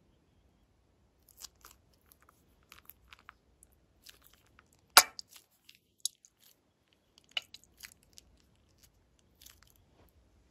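Plastic piping bag squeezed to push thick slime out into a glass bowl: scattered small crackles and pops, with one sharp click about halfway through.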